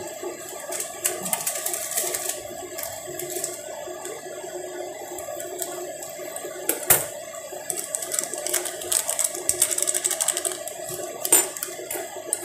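Small plastic sachets crinkling and rustling as they are snipped open with scissors and squeezed out, with sharp clicks and taps. The loudest clicks come about seven seconds in and near the end, over a steady low hum.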